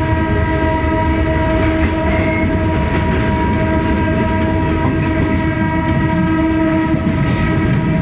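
A diesel train's horn held in one long steady tone for about seven and a half seconds, over the low rumble of the moving train heard from a carriage window.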